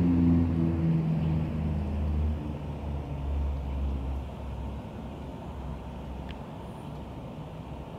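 A motor vehicle's engine passing on the street, its hum fading steadily away over the first five seconds and leaving a faint background rumble.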